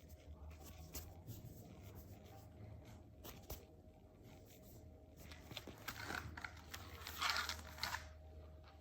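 Faint handling sounds as squishy toys are picked up and squeezed: light clicks and soft rustling, with a louder crinkly, scratchy stretch about six seconds in.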